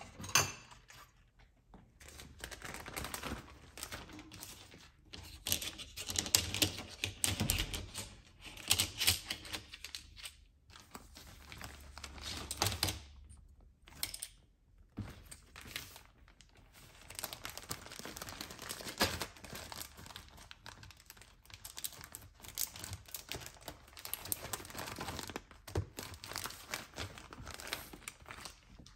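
Clear plastic bag crinkling and rustling as small items are taken out and handled, with many light clicks and taps. There is a single sharp knock at the very start.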